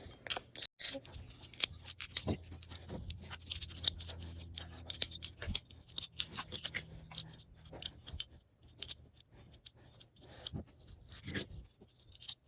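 Small plastic speed-cube pieces clicking, scraping and rattling in the hands while a 2x2 cube is taken apart and its center-piece screws are undone. A faint low hum sounds for several seconds in the first half.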